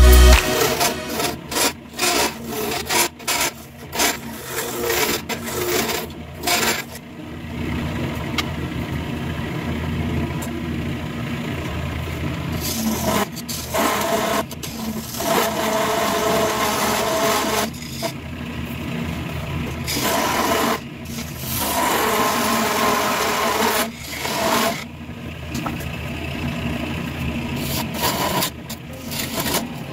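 A gouge cutting a spinning potpourri-and-clear-resin blank on a wood lathe: a rough, uneven scraping hiss as shavings come off, rising and falling as the tool is pushed in, with short lulls between passes.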